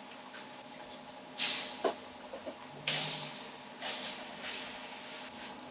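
Browned pork belly pieces tipped from a stainless steel tray into a wok of boiling sauce, hissing and sizzling in three bursts, the loudest about three seconds in. A short knock comes just before the middle burst.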